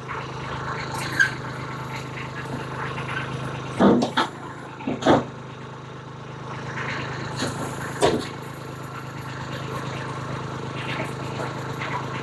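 Backhoe's engine running steadily while the rear backhoe arm is worked, with about four short sharp clunks spread through.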